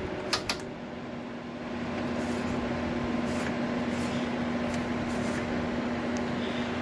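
Sharp 8,000 BTU window air conditioner running with its fan blowing and a steady hum. Two sharp clicks come about half a second in, as the controls are turned, and the unit's sound grows louder over the next second or so. The compressor is not kicking on.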